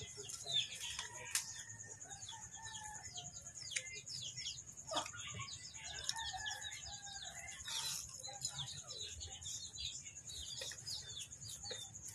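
Chickens clucking and small birds chirping in quick, scattered calls, over a steady high-pitched drone.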